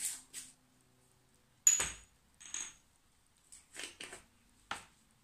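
About eight short metallic clinks and taps, the loudest about two seconds in with a brief high ring: a metal teaspoon and spice jars knocking against bowls while spices are measured out.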